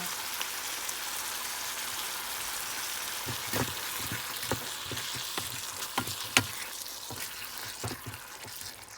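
Chicken and spiced tomato-onion mix sizzling in a frying pan. From about three seconds in, a spoon knocks and scrapes against the pan several times as the mix is stirred.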